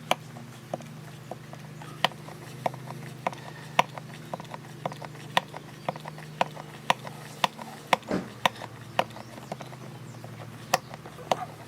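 Small hand pump for gear oil being worked in steady strokes, clicking sharply about twice a second as it pushes gear lubricant into an outboard motor's lower gear case. A steady low hum runs underneath.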